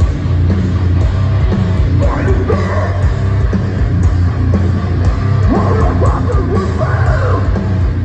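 Live deathcore band playing: heavily distorted guitars, bass and drums with a heavy low end, and harsh screamed vocals coming in about two seconds in and again in the second half, as heard from within the crowd.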